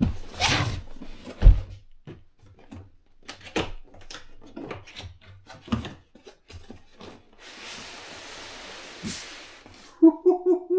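Large cardboard RC plane box being handled and opened: scattered knocks and thumps, then the lid sliding and rubbing off the box for a couple of seconds, with a short squeaky tone near the end.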